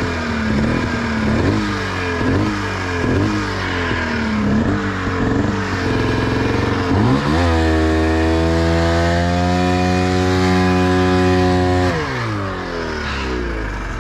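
Snowmobile engine blipped up and down in repeated revs about once a second, then held at high revs for about four seconds and let off, as the sled is worked to break free from deep snow.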